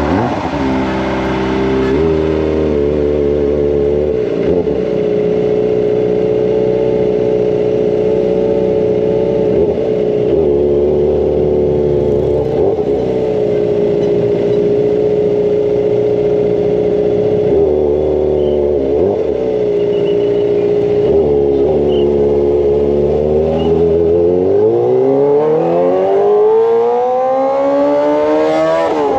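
Kawasaki ZX-25R inline-four motorcycle engine through a Racefit Slash aftermarket exhaust, under way. The revs drop right at the start, then hold steady for about twenty seconds with a few brief dips. Over the last few seconds the revs climb.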